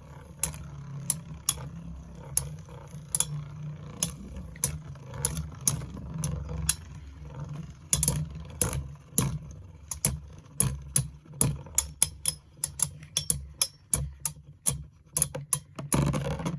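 Metal Fusion Beyblades (Lightning L-drago and Storm Pegasis) spinning in a stadium, their metal wheels clicking and clacking as they strike each other and the stadium wall, over a steady low hum. The clicks come faster and closer together toward the end as the round is decided.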